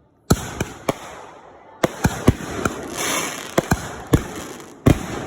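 Fireworks going off: a string of about ten sharp bangs, each trailing off, with a crackling hiss of smaller bursts about three seconds in.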